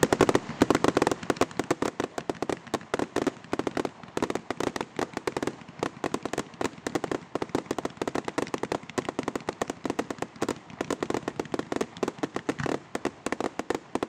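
Fireworks display: a continuous barrage of sharp bangs and crackles from bursting aerial shells, many reports a second, loudest in the first second or so.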